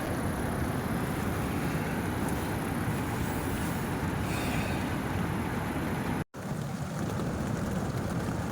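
A steady rushing noise, like wind or flowing water, that cuts out suddenly for a moment about six seconds in and then carries on.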